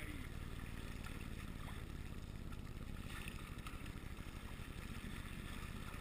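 Fishing boat's engine running steadily, a low rumble with a fast, even pulse.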